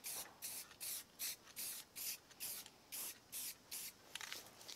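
Aerosol spray paint can sprayed in short hissing bursts, about three a second, thinning out near the end.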